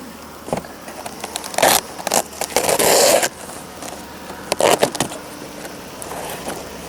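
Handling noise: a string of clicks and knocks, with a longer scraping, rustling stretch about two and a half seconds in and another cluster of knocks near five seconds.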